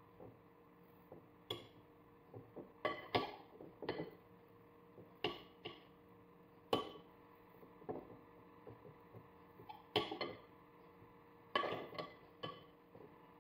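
A table knife scraping and tapping against a glass food container while spreading thick spice paste over meat: short, irregular clinks and scrapes, about one or two a second.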